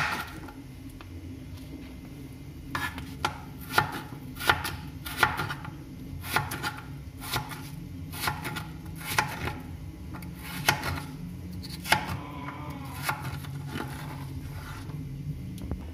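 Kitchen knife chopping chayote into thin strips on a plastic cutting board: irregular sharp knocks, about one to two a second, starting a couple of seconds in.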